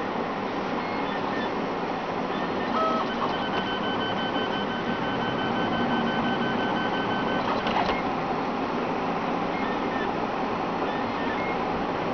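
3D printer running a print: a steady mechanical whir from its stepper motors as the hot end moves over the part, with a thin high whine held for a few seconds in the middle.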